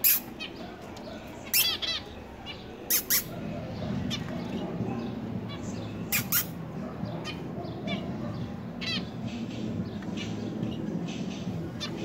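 Zebra finches calling: short, loud calls, one at a time and in quick pairs, every second or two through the first half, with fainter calls after. A low background murmur sets in about four seconds in.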